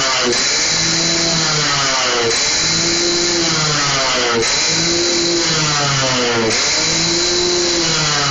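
Two-stroke motorcycle engine with an aftermarket 2R expansion-chamber exhaust, revved by hand on the stand: the throttle is blipped about every two seconds, each rev climbing sharply in pitch and then dying back toward idle.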